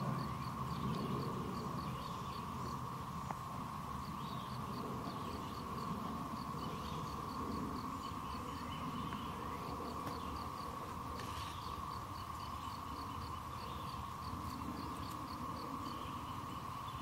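Birds calling: runs of short, evenly spaced high chirps, several a second, with other scattered chirps, over a steady hum and a low rumble.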